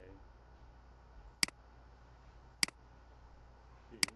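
Computer mouse button clicks: four sharp clicks, roughly one every second and a quarter, over a faint steady background hum.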